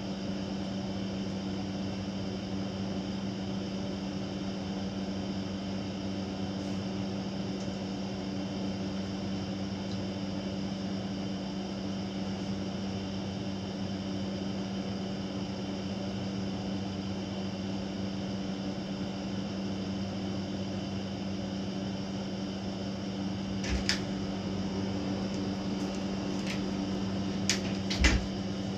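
Steady, even electrical hum of a running indoor appliance such as a fan or air-conditioning unit, with a few sharp clicks and knocks near the end.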